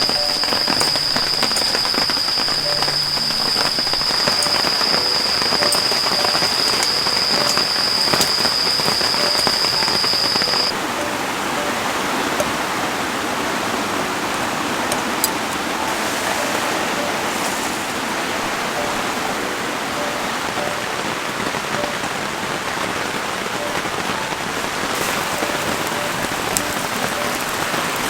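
Steady rain falling, a dense even patter. A thin, steady high-pitched tone sounds over it and stops about a third of the way through.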